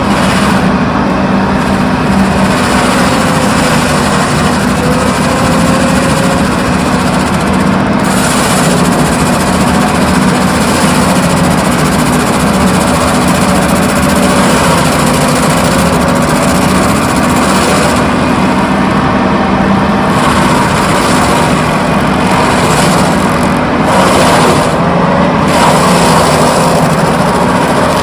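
Heavy diesel engine of a Doosan DX340LC excavator running loud and steady, with a faint wavering whine over the constant hum.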